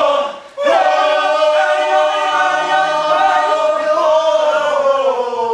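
Several men's voices singing together a cappella, holding a long note after a short break about half a second in; the pitch slides down near the end.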